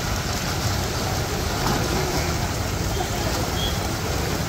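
Steady rush of floodwater flowing across a submerged road, an even noisy wash with a deep rumble underneath.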